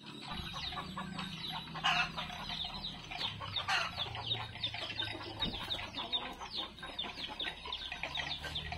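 Free-ranging farmyard chickens clucking, with rapid high chirps repeating throughout and two louder calls about two and four seconds in, over a low steady hum.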